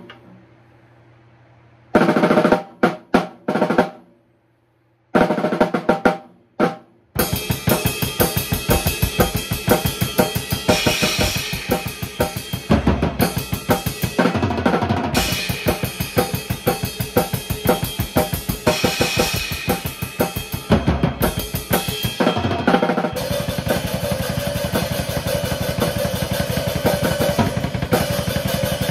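Drum kit being played: a few separate hits with a short break, then from about seven seconds in a continuous fast pattern of bass drum, snare and cymbals.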